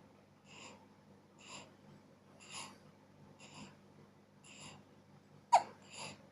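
Newborn baby hiccupping: soft, airy breaths about once a second, then one sharp, loud hiccup about five and a half seconds in, followed by a breath.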